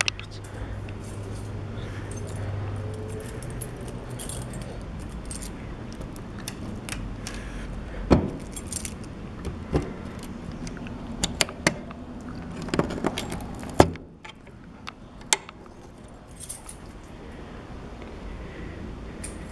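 Keys jingling, with a series of sharp clicks and knocks, while someone walks and handles things. A low steady hum is there for the first few seconds and then stops.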